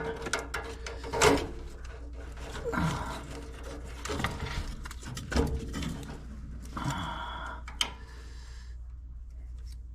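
Scattered clicks, scrapes and rustles of hands working wire connectors and plugs off and onto a furnace control board's terminals, over a low steady hum.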